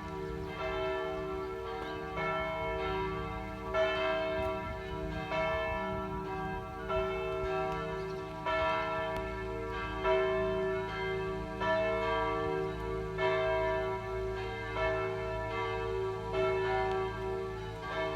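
Church bells ringing: repeated strikes about every three-quarters of a second, every other one louder, each tone ringing on into the next so the sound never breaks.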